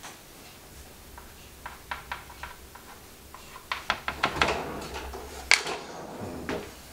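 Chalk tapping and scratching on a small chalkboard while a tree is drawn: scattered short ticks that come thicker about halfway through, with one sharper tap near the end.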